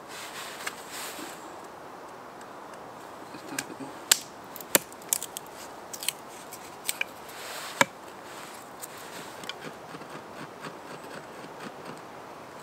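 A knife working dry sticks into kindling: scraping as shavings are cut, and a run of sharp wooden cracks and knocks in the middle as pieces are split.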